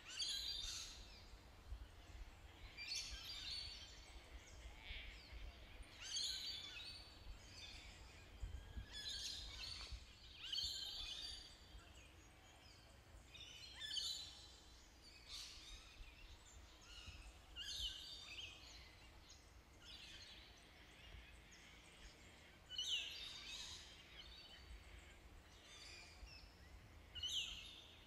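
Newborn lion cubs mewing: short, high, squeaky calls that come again every one to three seconds, over a faint low hum.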